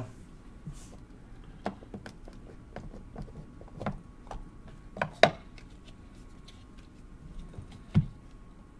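Hands handling and opening a cardboard trading-card box against a tabletop: scattered light taps and rubs, a sharp click about five seconds in and a dull thump near the end.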